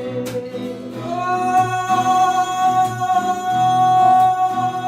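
Bengali folk song: one long note held from about a second in to near the end, over a plucked acoustic guitar accompaniment.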